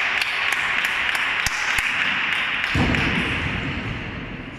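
Table tennis ball bounced repeatedly, light taps about three a second for the first half, over a steady hiss of hall noise. A low rumble comes in about halfway through.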